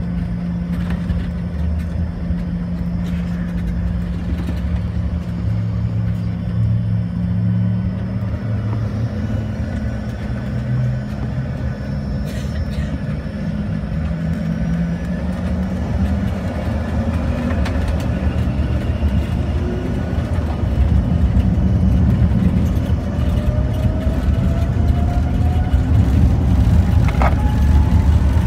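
Cabin sound of an Embraer ERJ-145's rear-mounted Rolls-Royce AE 3007 turbofans humming at low power over a steady low rumble. About two-thirds of the way in they spool up to takeoff power, with a rising whine and the whole sound growing louder.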